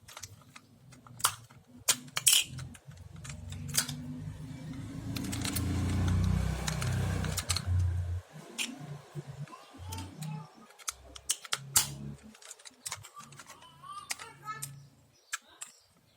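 Battery-operated plastic toy horses being handled: scattered sharp clicks and clatter, with a low rumble that swells through the middle and cuts off suddenly.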